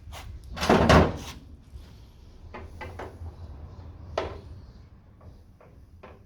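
Light taps and knocks on the Mk2 Escort's steel rear quarter panel while a dent is worked out, with a louder scraping stroke about a second in, then a few single sharp taps spread over the following seconds.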